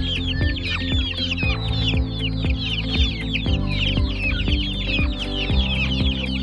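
A flock of young native chicken chicks peeping continuously, a dense chorus of short falling chirps. Under them runs background music with a steady beat about twice a second.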